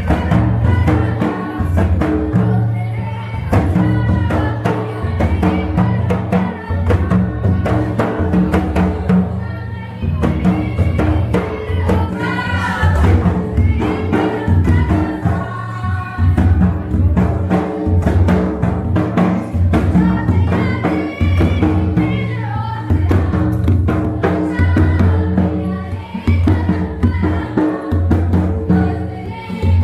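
Karam folk song in Nagpuri style: group singing over a steady, repeating drum beat.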